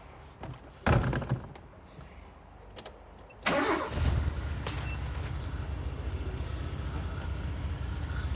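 A thump about a second in. At about three and a half seconds the Mazda E2000 van's carburetted engine starts quickly and settles into a steady idle. The faulty MCV air valve has been taken out, which the mechanic says has cured the misfire.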